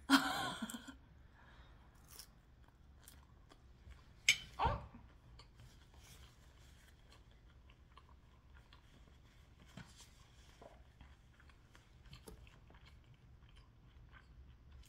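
Close-up mouth sounds of a woman eating a forkful of lasagna. There is a loud bite at the start, then quiet chewing with small scattered mouth clicks, and one sharp louder sound about four seconds in.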